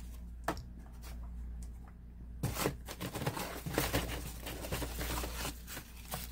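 Packing paper crinkling and rustling as a hand digs through a cardboard case for a blister-carded die-cast car, busiest in the middle of the stretch. A single light knock about half a second in.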